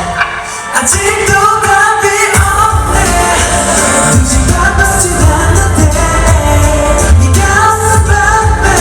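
K-pop song with sung vocals over a heavy beat. The bass drops out briefly near the start and returns about two and a half seconds in.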